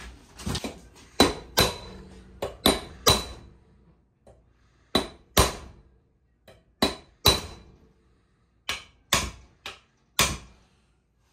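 Small sledge hammer striking a brass drift held on a gear puller's bolt, about fifteen sharp blows in groups of two or three, each with a short metallic ring. The blows are meant to shock a stuck pulley off a VW generator shaft, and it is not budging.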